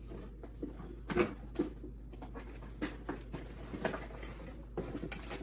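Scattered rustling and light knocks of computer parts and their packaging being handled, at irregular moments, the loudest about a second in.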